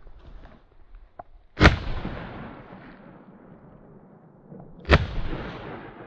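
Two shotgun blasts about three seconds apart, each with a long echoing tail that dies away slowly. They are shots fired at a flushed kalij pheasant.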